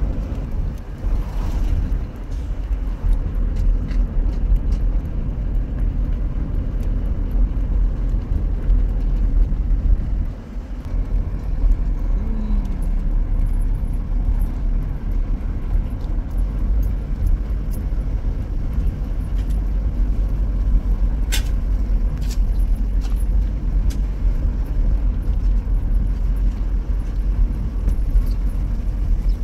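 A car driving along a road, with a steady low rumble of engine and road noise heard from inside the moving vehicle. A couple of sharp clicks come about two-thirds of the way through.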